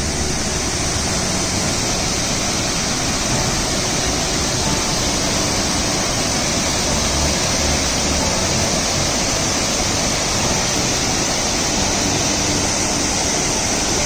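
Rushing water, a steady, unbroken hiss of a fast stream or waterfall.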